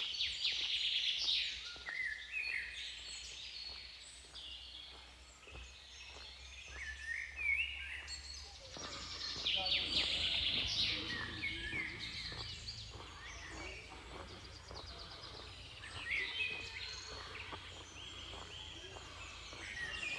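Several songbirds singing and chirping, with quick runs of repeated notes and short trills. A faint steady low hum runs underneath.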